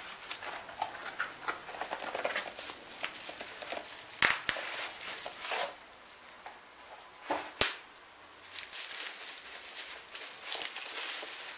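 Plastic bubble wrap and a cardboard shipping box rustling and crinkling as a package is lifted out and handled, with two sharp cracks, one about four seconds in and one about three seconds later.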